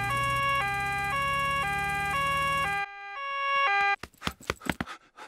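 Cartoon two-tone emergency siren from a doctor's car, switching between a high and a low note about twice a second over a low steady hum. It cuts off suddenly about four seconds in, and a few quick taps follow.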